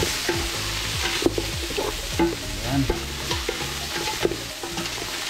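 Chicken pieces sizzling as they are sautéed with ginger, garlic and onion in a pot, stirred with repeated scraping strokes of a utensil against the pot.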